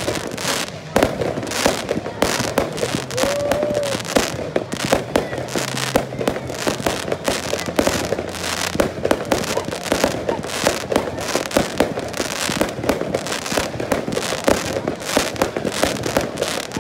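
Aerial fireworks display: shells bursting one after another in a rapid, continuous stream of bangs and crackles, with no pause.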